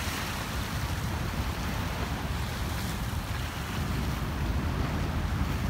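Waterfront ambience: wind rumbling on the microphone over a steady wash of water.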